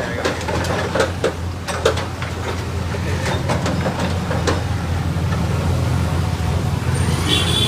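Heavy bulldozer engine running steadily with a low pulsing hum, with scattered knocks and clatter over it.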